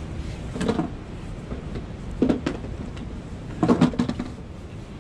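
Knocks and clatters of objects being shifted about in a storage box while rummaging for cooking utensils, in three short bunches, the last the loudest.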